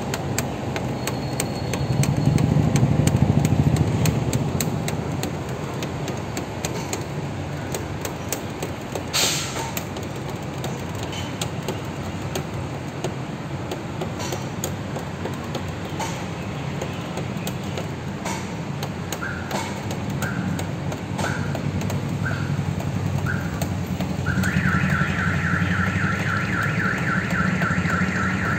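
A steady low rumble runs throughout. In the last third an electronic alarm sounds: five short beeps about a second apart, then a continuous fast-warbling tone for the last few seconds.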